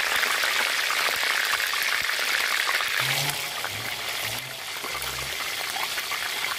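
A whole chicken deep-frying in hot oil in a large wok: a steady, dense sizzle and crackle of bubbling oil. It eases a little about halfway through.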